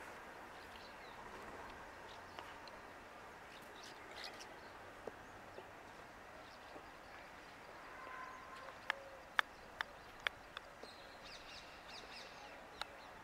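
Quiet outdoor ambience with faint bird calls. About nine seconds in, four sharp clicks come in quick succession, and another follows near the end.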